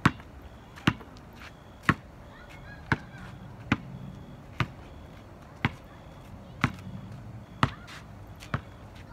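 Basketball dribbled on asphalt: about ten sharp bounces at a steady pace, roughly one a second.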